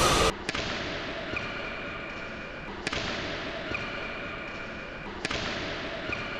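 Badminton racket strings striking a shuttlecock in a smash-and-defence rally: four sharp cracks, about half a second in, near three seconds, just under four seconds and just over five seconds.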